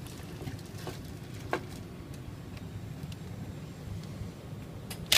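Faint clicks and taps of a screw and driver being set against the new casement crank hardware, over a low steady hum; a power drill starts driving a screw right at the end.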